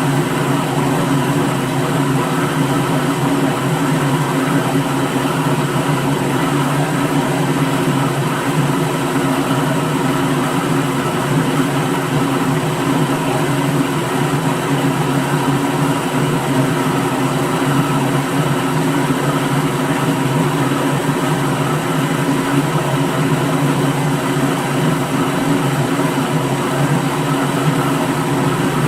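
Electric kitchen blender's motor running continuously at a steady speed, a constant whirring hum with no change in pitch or level.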